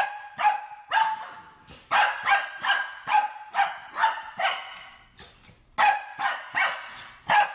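Small white dog barking repeatedly in short, high yaps, about two or three a second, with a brief pause about five seconds in.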